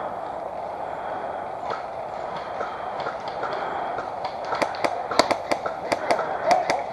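Airsoft guns firing: a dozen or so sharp, irregular cracks that start about four and a half seconds in, over a steady background noise.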